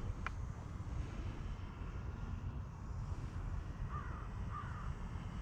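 Steady low wind rumble on the microphone, with a bird calling twice, two short rising-and-falling notes, near the end.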